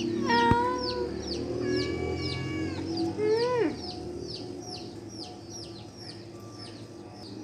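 Chickens: a steady run of high, short peeps that slide downward, about three a second, with a few longer drawn-out calls in the first half, the last one rising and then falling.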